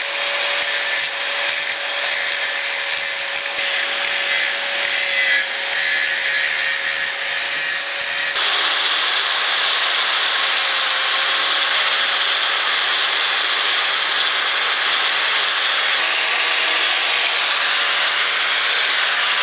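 Handheld angle grinder running with a steady whine, its disc grinding the broken bolt flange on a 1949 Allis-Chalmers G tractor's cast-iron frame to clean it up before welding. The grinding is uneven for about the first eight seconds, then steady.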